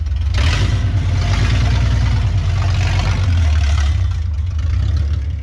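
Jeep CJ-7's engine running loud through its true dual exhaust as the Jeep pulls away and accelerates. There is a deep, steady exhaust rumble with a rasp over it, and the note shifts lower a little past the middle.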